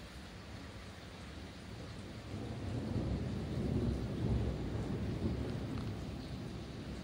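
Thunder rumbling: a deep roll that builds about two seconds in, is loudest around the middle, and dies away near the end, over a steady hiss of rain.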